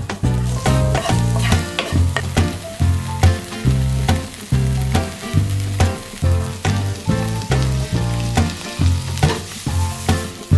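Sliced green onions sizzling as they fry in melted butter in a frying pan, over background music with a steady beat.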